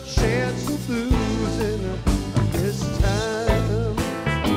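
Live rock band playing with guitars, bass and drums: steady drum beat and bass under a lead melody that bends and wavers in pitch.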